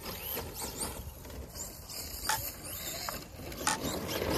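Traxxas Slash VXL electric RC short-course truck running over rough grass, its brushless motor whining up and down with the throttle and its drivetrain clattering. It gets louder near the end as the truck comes close.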